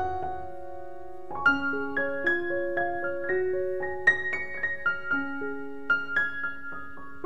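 Background piano music: a held chord, then a melody played note by note.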